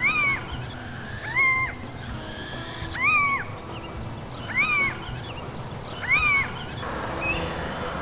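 Little owl calling: five rising-and-falling 'kiew' calls, about one every second and a half. These are the social contact calls exchanged between an adult female and her juvenile begging for food.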